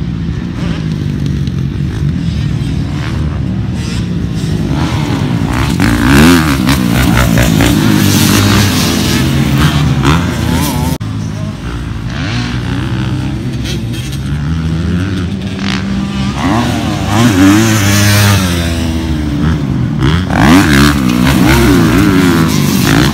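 Four-stroke 450 motocross bike, a 2019 Honda CRF450R fitted with a Yoshimura RS-9 titanium exhaust, revving hard and backing off again and again as it accelerates and shifts around the track, the pitch rising and falling repeatedly. The sound cuts and dips briefly about eleven seconds in.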